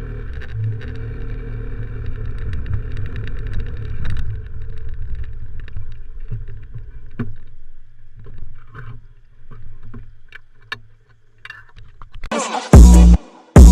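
Motorcycle engine running with a steady low hum and scattered clicks, growing fainter in the second half. Near the end, loud music with a heavy beat starts abruptly.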